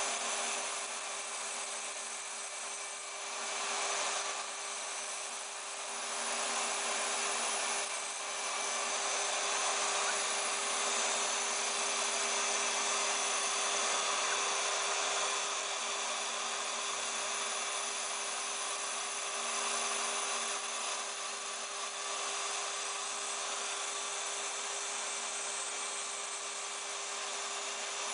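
Small CNC router milling Depron foam: the spindle motor runs with a steady whine over the hiss of the end mill cutting the foam, the level swelling and easing a little as the cutter moves through its path.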